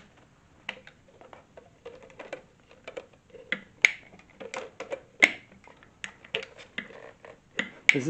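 Irregular sharp plastic clicks and taps as the clear dust bin of an Ultenic U12 Vesla cordless stick vacuum is opened and handled.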